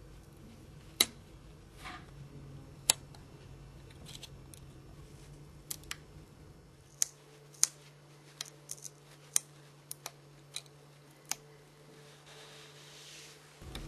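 About a dozen sharp small clicks and taps at irregular intervals, the sound of small hand tools handling a mobile phone's plastic and metal parts during disassembly. The two loudest clicks come about a second and three seconds in.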